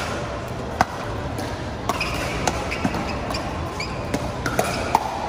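Pickleball rally: the hard plastic ball popping off paddles in a quick run of sharp hits, roughly two a second, over a steady background hubbub.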